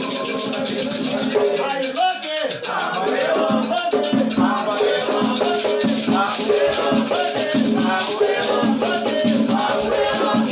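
Batuque ceremonial music: voices singing a chant over rattles shaken in a steady rhythm, with a brief break in the singing about two seconds in.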